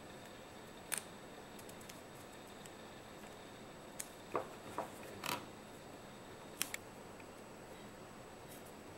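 Hands handling cotton adhesive tape and a latex band while wrapping them onto a slingshot fork: a few faint clicks, and three short scratchy rasps of the tape near the middle.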